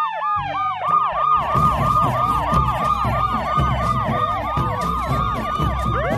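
Police siren sound effect for an animated patrol car and motorcycles: a fast, repeating rise-and-fall wail, several sirens overlapping, over a low rumble. Another siren swoops upward near the end.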